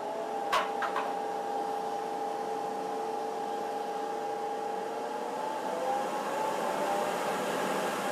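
A 1-horsepower electric blower motor running slowly through a router speed controller: a steady hum with a clear whine, two clicks about half a second and a second in, and the whine stepping up in pitch about five and a half seconds in as the speed is turned up. On the controller the motor makes a funny noise and only works near the top of the dial.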